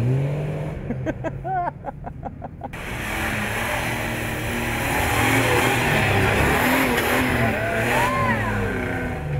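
A four-wheel drive's engine revving up and down under load. From about three seconds in it is joined by a broad rushing noise.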